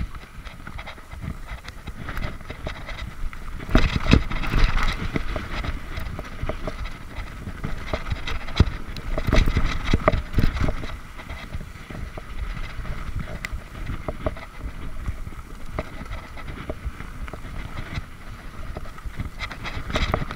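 Mountain bike rolling down a rough dirt singletrack: tyres on dirt with the frame, chain and parts rattling and knocking over bumps, and heavier jolts about four seconds in and again around nine to ten seconds.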